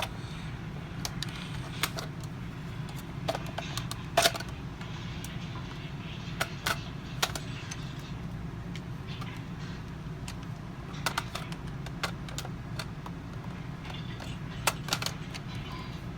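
Plastic clicks and knocks of Nerf blasters being handled, scattered and irregular, the loudest about four seconds in, over a steady low hum.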